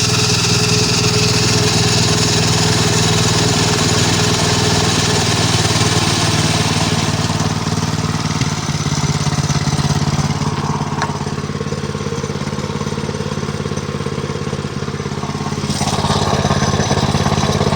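Small mini bike engine running steadily at idle.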